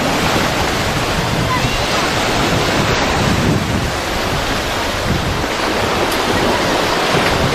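Sea of Azov waves washing onto the shore, with wind buffeting the microphone in a steady rush.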